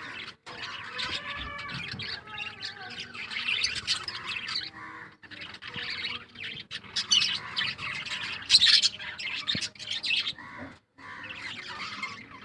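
Pet budgies and lovebirds chattering, chirping and squawking together, a busy overlapping mix of high calls with a few louder sharp squawks.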